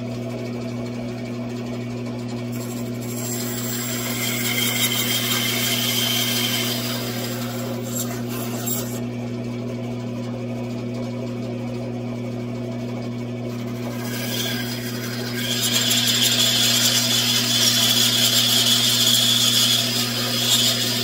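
Bandsaw running with a steady motor hum while its blade cuts through a small block of wood in two passes: a high cutting hiss from a couple of seconds in to about nine seconds, and again from about fourteen seconds until near the end.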